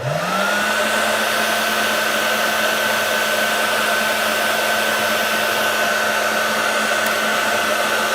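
Electric hot-air blower switched on, its motor spinning up over the first half second, then running steadily while it heats the phone's info sticker to soften the adhesive.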